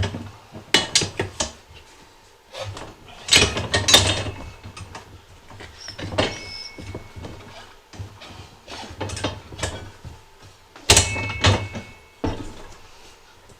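Metal clanks, knocks and scrapes of a manual Harbor Freight tire changer being worked to break the bead of an ATV tire loose from its rim, with heavier clunks about three seconds in and again near the end and a short squeak in between.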